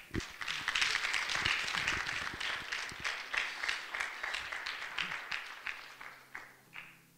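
A church congregation applauding, a dense patter of many hands clapping that thins out and fades away near the end, where a faint low steady tone comes in.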